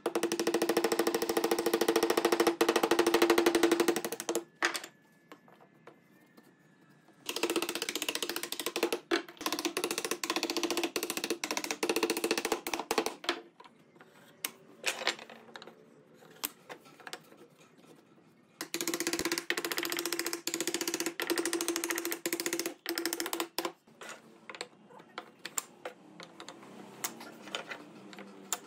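Woodworking power tool run in three bursts of several seconds each: a fast, even rattle over a steady hum. Scattered knocks and taps sound in the pauses between runs.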